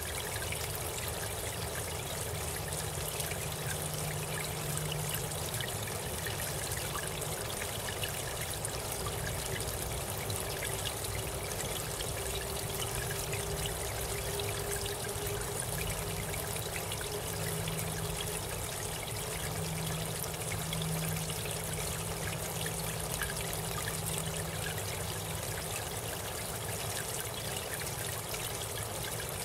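Garden pond fountain with a bell-shaped nozzle, its sheet of water falling and splashing steadily into the pond surface.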